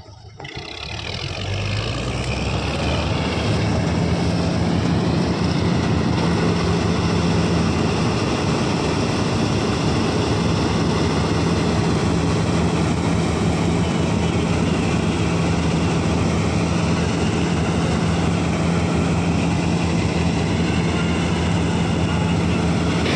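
2014-model K-Rama combine harvester running steadily while harvesting paddy and unloading grain through its auger, a constant engine drone with a steady low hum. The sound fades in over the first two seconds.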